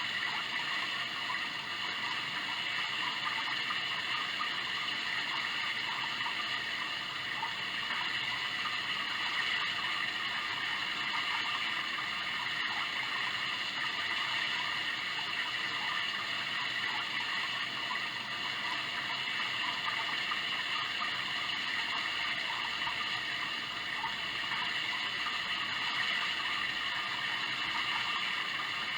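Sound Oasis ambient sound machine playing a steady running-water soundscape, an even hiss that holds at one level throughout.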